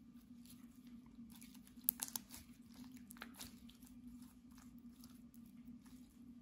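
Clear slime with makeup mixed in, stretched and squeezed by hand, giving faint sticky crackles and pops, with a cluster of louder pops about two seconds in.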